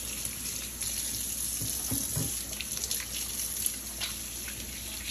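Kitchen tap running into a stainless steel sink while hands are rinsed under it, with a few small clicks and knocks.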